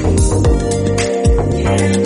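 Background music with a steady beat: held tones over a deep bass drum and crisp percussion hits.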